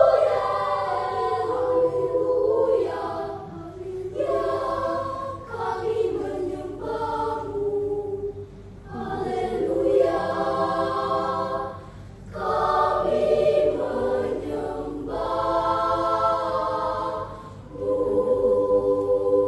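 A choir singing, in sustained phrases with short breaths between them, without audible accompaniment.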